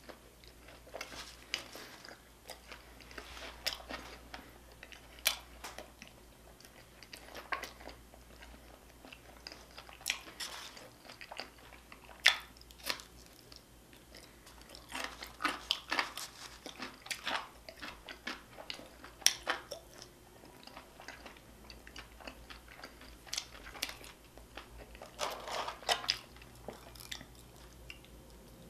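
A person chewing and biting food close to the microphone, with irregular crunchy bites and wet mouth smacks throughout.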